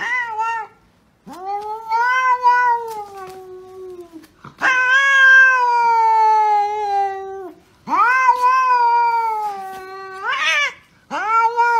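Domestic cat meowing in long, drawn-out calls: about five in a row, each two to three seconds long and sliding slightly down in pitch, with short pauses between.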